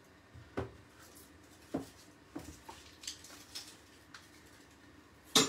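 Red onion being peeled with a kitchen knife: a few faint dry crackles and light taps of papery skin and blade, then one sharp knock near the end.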